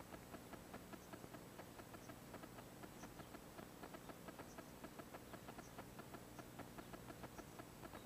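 Near silence with a faint, rapid ticking, several clicks a second, running evenly.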